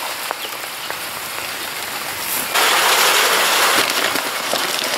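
Steady rain falling. About halfway through, its hiss jumps suddenly louder and brighter.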